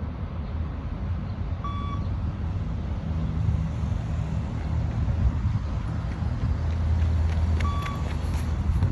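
Two short electronic beeps of a beep test (20 m shuttle run) recording, about six seconds apart, each marking the end of one shuttle. They sound over a steady low rumble.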